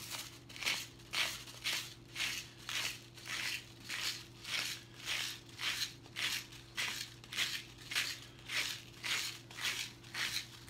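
Himalayan pink salt grinder being twisted by hand, its cap crunching coarse salt crystals in an even rhythm of about two grinding strokes a second.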